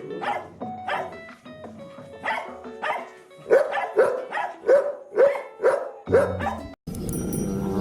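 Dog barking repeatedly in short, sharp barks, about two a second through the second half. The barking cuts off abruptly near the end.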